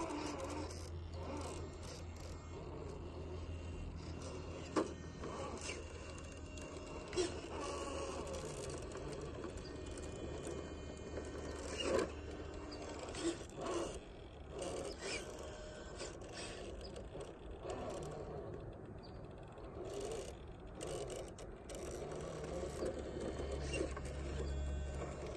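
Traxxas TRX-4 RC crawler climbing bare granite: its motor and drivetrain running at crawl speed and its tyres scraping on the rock, with several sharp knocks as it shifts on the slab.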